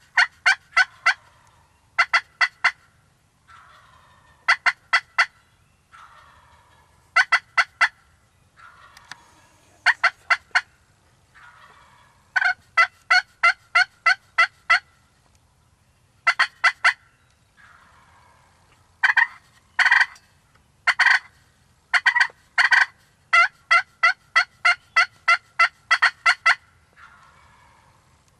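Turkey calling: about a dozen short bursts of rapid, sharp yelping notes, one every two to three seconds, with fainter, rougher calls in between.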